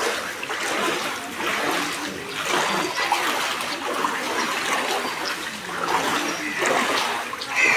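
Feet wading through knee-deep floodwater, splashing and sloshing with each stride, about one step a second.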